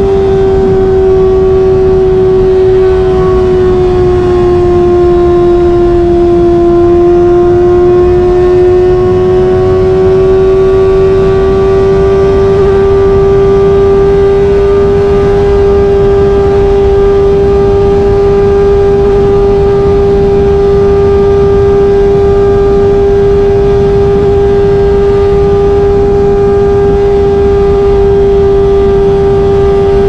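Kawasaki ZX-25R's 250 cc inline-four, fitted with an SC-Project exhaust, running at high revs in sixth gear at a steady highway cruise. It gives a high-pitched, even drone that eases down slightly a few seconds in and then holds steady, over a rumble of wind and road noise.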